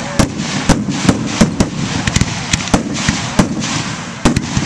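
Fireworks grand finale: aerial shells bursting in quick, irregular succession, about two or three loud bangs a second, over a continuous noisy haze.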